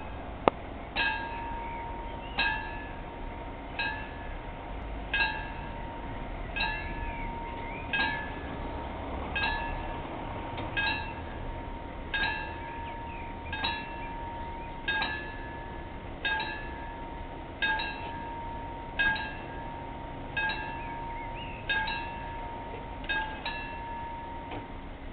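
Level-crossing warning bell striking about once every second and a half, each strike ringing on, signalling that the crossing is closing. It stops near the end. There is a sharp click about half a second in.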